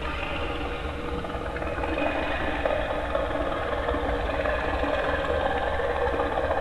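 A steady mechanical running sound, a low rumble with rattling clatter above it, starting abruptly.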